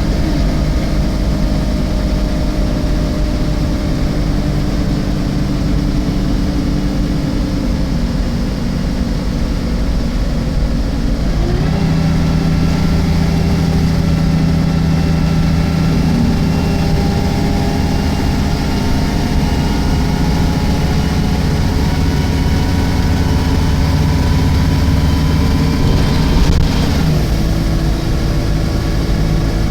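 Alexander Dennis Enviro 300 single-decker bus on a MAN chassis, its engine running steadily. About a third of the way in the engine note rises and grows louder, and it shifts again near the end.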